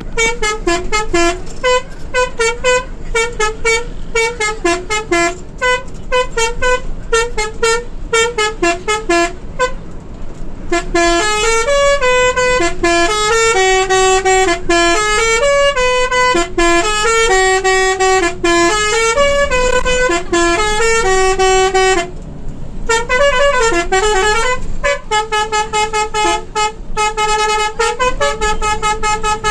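A bus's multi-tone musical horn playing a tune: quick short staccato notes at first, then a slower melody of held notes, a brief break a little over twenty seconds in, and quick repeated notes again.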